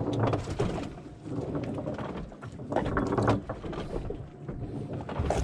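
Steady low machinery hum aboard a wooden fishing boat, with scattered knocks and clatter on deck and short spells of muffled voices at the start and about three seconds in.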